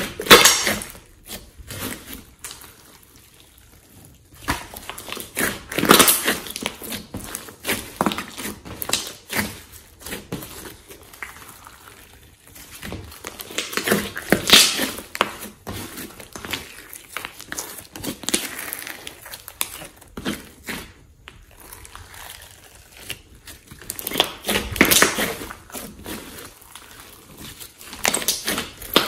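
Thick slime mixed with clay being kneaded, squeezed and folded by hand, giving irregular bursts of sticky clicks and pops as trapped air escapes. It is loudest in clusters every few seconds, with a quieter lull early on.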